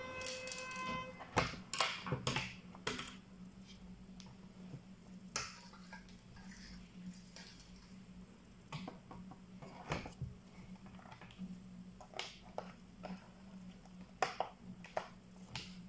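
Scattered clicks and knocks of a ThinkPad Edge laptop's plastic case being handled: turned over, its lid opened, and fingers pressing along the keyboard edge. There is a brief pitched tone in the first second, and a low steady hum runs underneath.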